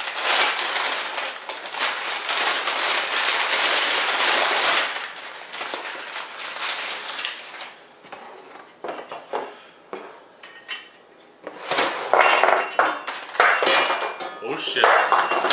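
Brown kraft packing paper crinkling and rustling as it is pulled around inside a cardboard box, dense for the first few seconds. Later come scattered clicks, then sharper clinks and clatters of powder-coated steel mounting brackets being handled.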